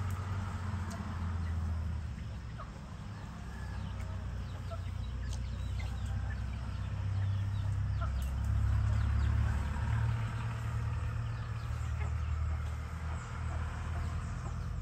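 Countryside dawn ambience: a steady low rumble under faint scattered bird calls, among them a distant rooster crowing.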